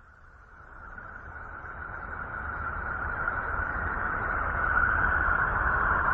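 The 'sound of Uranus' released by NASA, spacecraft data turned into audio. It is an eerie rushing hiss with a bright band in the middle range and a low rumble beneath, swelling steadily louder.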